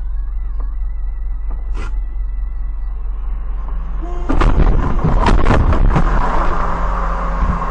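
Dashcam audio with a steady electrical hum. About four seconds in comes a sudden run of heavy bangs over a second and a half, a vehicle collision, followed by a louder stretch of noise.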